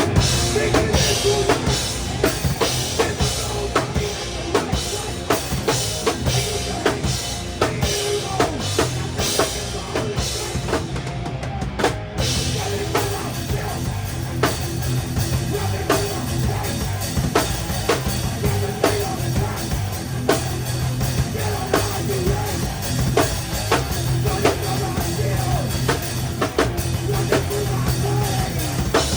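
Live rock band playing a song, with the drum kit loud and close: steady kick, snare and cymbal hits over bass and guitar. The band comes in hard at the very start.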